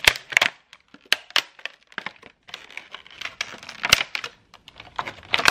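Stiff clear plastic knife packaging crackling and clicking irregularly as it is handled and pried apart, with one sharper crack about four seconds in.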